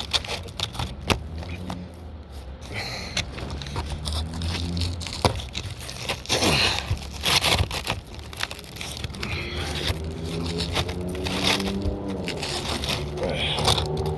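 Asphalt roofing shingles being lifted and worked by hand: scraping and crackling of the shingle material, with scattered clicks and taps, over a steady low hum.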